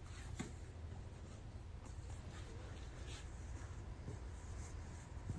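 Soft, faint brushing of cotton quilting fabric being rolled onto a corrugated plastic core under light hand pressure, with a few small taps.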